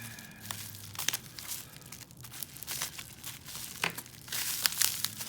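Packaging being crinkled and torn by hand as a wrapped item is unwrapped: a run of rustles and sharp crackles, busiest near the end.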